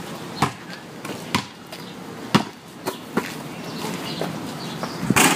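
Basketball bouncing on a concrete driveway, several sharp bounces about a second apart, followed by a louder hit near the end.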